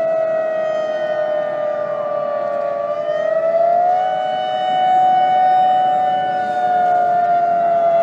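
Civil defense siren wailing as an earthquake alert: a loud, held tone that sags slowly in pitch and climbs back up about four seconds in, with two pitches sounding close together.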